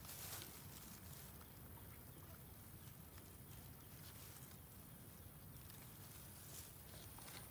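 Faint rustling and crackling of leaves and fern fronds as a hand pushes through low ground vegetation, with a few light snaps near the start and near the end.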